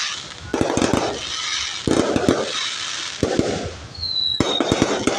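Aerial fireworks bursting overhead in about four quick volleys of bangs, each trailed by a hiss of crackling. A short high whistle comes about four seconds in.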